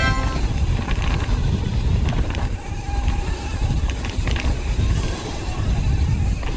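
Mountain bike descending a downhill trail: a steady rumble of wind and tyre noise, with scattered clicks and rattles from the bike.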